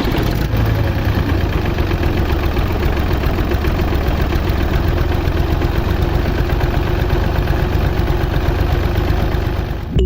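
An engine idling steadily with a rapid, even chugging.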